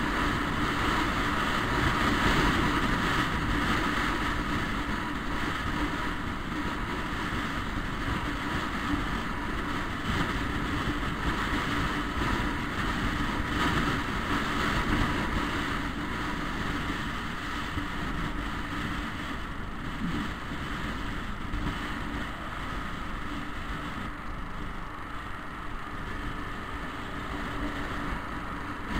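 Wind rushing over the microphone of a riding motor scooter, with the scooter's engine running underneath as it travels along the road. The noise eases a little in the second half.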